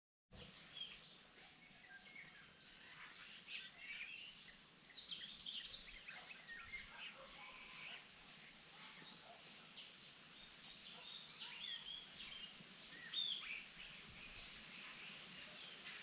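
Several songbirds singing and calling in woodland, a scatter of short chirps and whistled phrases overlapping one another, with one louder call about thirteen seconds in.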